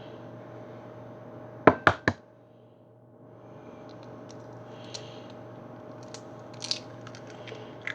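An egg rapped three times in quick succession against a hard edge to crack the shell, about two seconds in, followed by faint small clicks of shell handling. A steady hum runs underneath.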